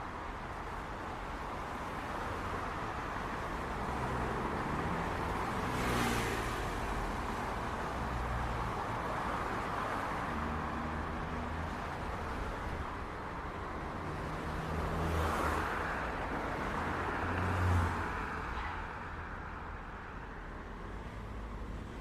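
City street traffic: a steady wash of cars and engines running. Vehicles swell past about a quarter of the way in and twice more after the middle. The last pass is the loudest.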